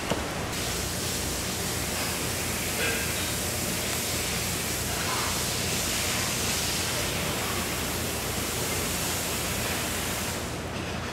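A steady rushing hiss that comes up about half a second in and eases near the end, with faint voices underneath.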